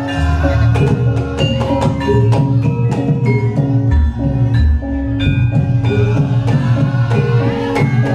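Loud Javanese gamelan music played over a sound system: struck metal keyed instruments ring out a melody of sustained notes over drum strokes.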